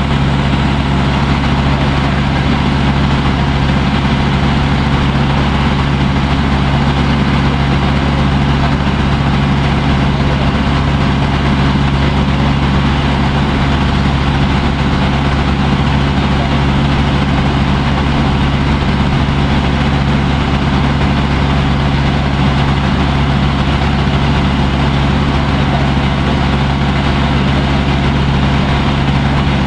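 A water taxi's engine running steadily, heard from on board, with no change in speed.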